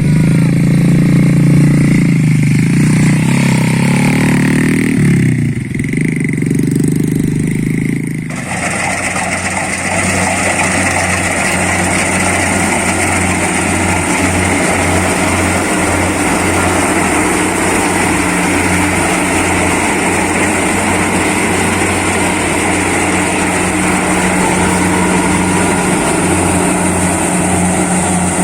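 Combine harvester running, its engine pitch shifting up and down in the first few seconds. About eight seconds in the sound changes abruptly to a steady, noisier machine drone that carries on.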